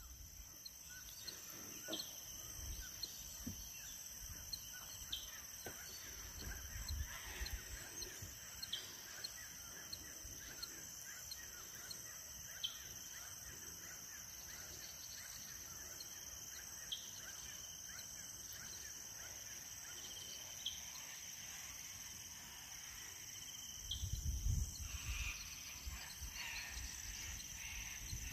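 Evening riverbank ambience: a steady, high-pitched chorus of insects with regular faint ticking, and scattered bird chirps. A low rumble swells briefly near the end.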